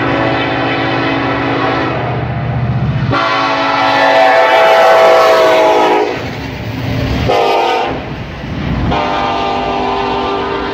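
BNSF diesel freight locomotives sounding their air horn as the train passes close by: long blasts with a short blast about seven and a half seconds in. The horn is loudest around five seconds in, as the lead locomotive goes by.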